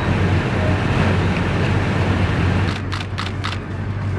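Pickup truck engine running with a steady low hum. About three seconds in the engine noise drops and a quick run of about five sharp clicks follows.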